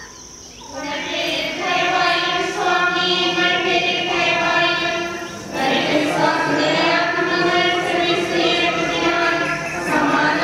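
Slow devotional hymn singing with long held notes, starting about a second in, with a short break about halfway before the next phrase.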